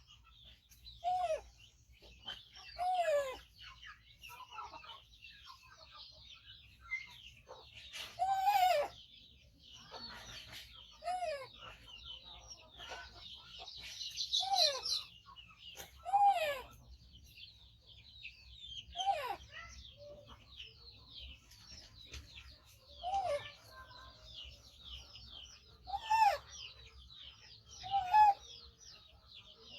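Baby monkey giving short, loud calls again and again, about ten in all, spaced two to three seconds apart, while waiting to be fed. Small birds chirp constantly in the background.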